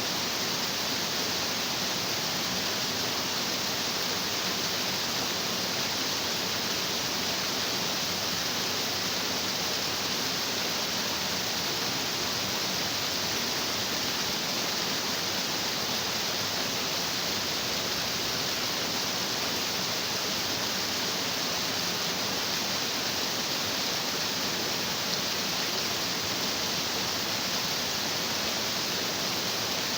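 Stream water rushing and splashing over rocks: a steady, unbroken hiss, strongest in its upper range.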